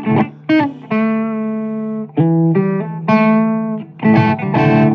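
Guitar playing in a blues track: a few held notes and short phrases, with brief breaks between them.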